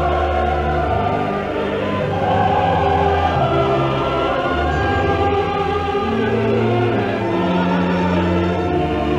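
Opera chorus singing with an orchestra in slow, long-held chords that change every second or two.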